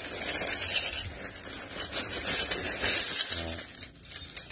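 Stainless steel spoons, forks and ladles clinking and rattling against each other inside a plastic bag as hands rummage through them, with the plastic crinkling.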